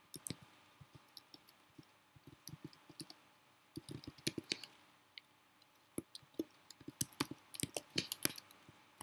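Computer keyboard keys clicking as code is typed, in uneven runs of keystrokes with short pauses between, busiest in the second half.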